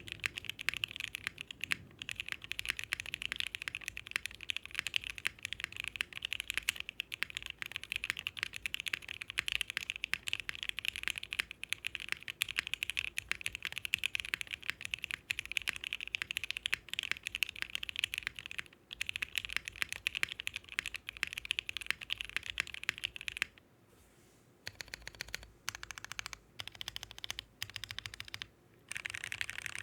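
Fast, continuous typing on a Bakeneko mechanical keyboard with Gateron Ink linear switches (205g0-lubed, 0.15 mm TX films, slider rails lubed on top to dampen top-out) under 8008 keycaps, mounted in an FR4 half-plate on a standard PCB. The keystrokes are crisp and bright. The typing stops for about a second near the end, then resumes in short runs.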